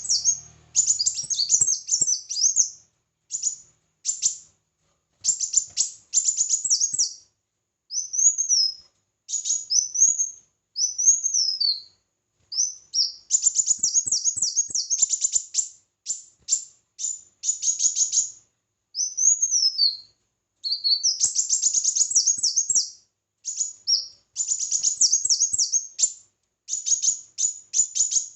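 Sunbird (kolibri wulung) singing: repeated bursts, a second or two long, of rapid, very high-pitched trilled chirps, with short gaps between them and now and then a single arched whistled note.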